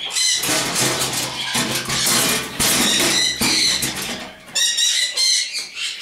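Caged parrots squawking and screeching together in a loud, shrill chorus, with a burst of rapidly repeated high calls near the end.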